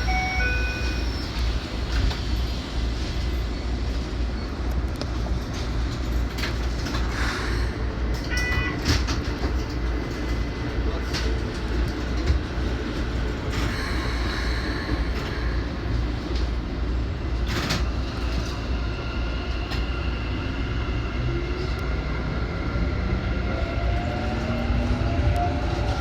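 Keikyu electric train heard from the front of the train: a steady rumble with scattered clicks and a brief run of electronic tones about eight seconds in. From about twenty seconds the motor whine rises steadily in pitch as the train accelerates.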